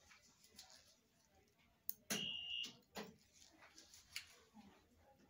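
Small clicks of metal dental instruments against teeth and brackets during braces fitting, with one loud, high electronic beep lasting about half a second, about two seconds in.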